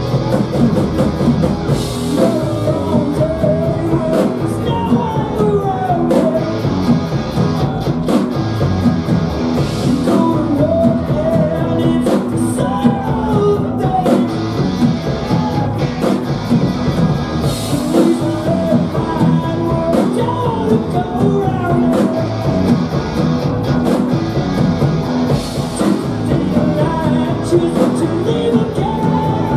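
Rock band playing live: distorted electric guitar, electric bass and drum kit, with a sung lead vocal over them.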